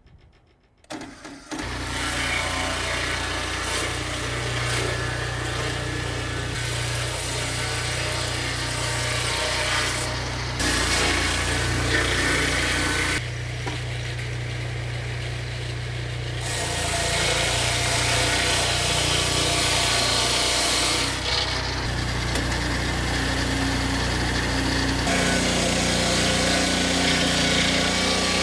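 Woodworking machinery running steadily, a low motor hum under noisy cutting sound, changing in tone several times.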